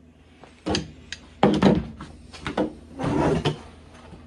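Handling noise of a person settling at a table: a series of about six knocks and scrapes of a chair and objects on a tabletop, the loudest about one and a half seconds in.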